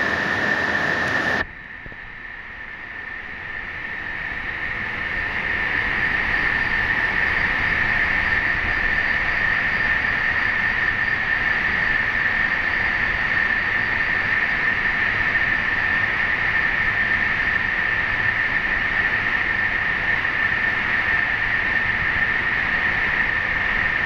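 Extrusion lamination plant for woven fabric running: a steady machine drone with a constant high-pitched whine. About a second and a half in, the sound drops sharply and swells back to full level over the next few seconds.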